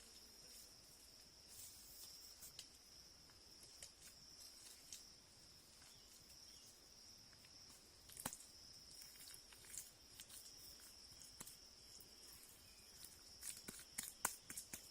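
Insects droning steadily at a high pitch, with scattered light clicks and taps that come more often near the end.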